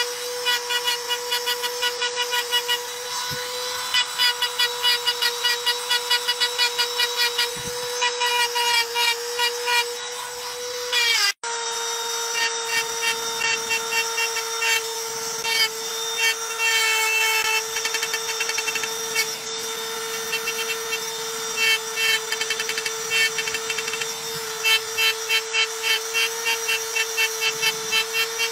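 Handheld electric engraving pen running with a steady whine while its bit scratches lines into dark stone in quick, rhythmic rasping strokes. About eleven seconds in the whine falls in pitch and cuts out for a moment, then starts again.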